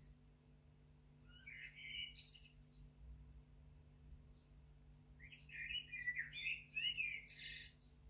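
Male Eurasian blackbird singing: two phrases of fluting, warbled notes, the first about a second and a half in and ending in higher, thinner notes, the second longer and louder starting about five seconds in.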